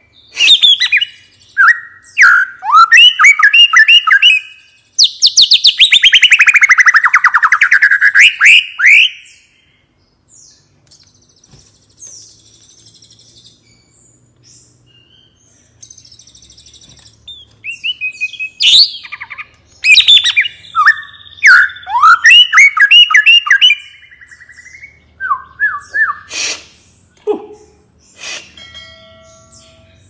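White-rumped shama singing its relaxed, open 'ngeplong' song in loud whistled phrases. About five seconds in comes a long rapid trill that sweeps down in pitch and turns back up. After a lull of several seconds with only faint notes, it resumes with quick runs of phrases.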